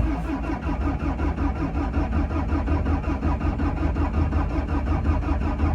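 Bobcat T650 skid steer's diesel engine cranking on the starter without catching: a steady, rapid chug of about five pulses a second. It will not start, and the owner suspects a weak battery.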